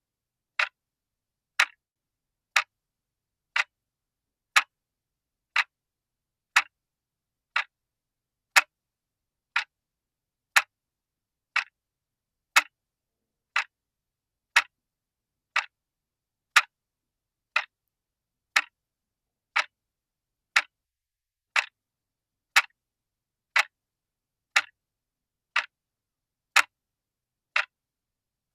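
Clock ticking steadily, one sharp tick a second with silence between.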